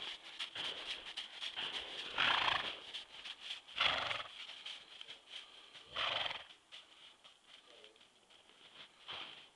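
Missouri Fox Trotter gelding's hooves stepping in snow under a rider, a run of soft ticks, cut by four short loud bursts of noise about two to three seconds apart, the loudest about four seconds in.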